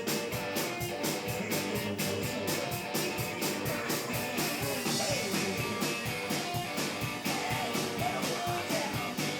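Hill-country blues played by a small band: guitar over a steady, driving drum beat.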